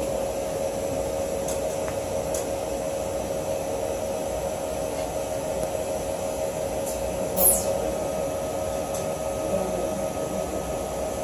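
Steady machine hum of an Accretech UF2000 wafer prober during wafer unloading, carrying two steady mid-pitched tones, with a few faint clicks. A short high squeak slides downward about seven and a half seconds in.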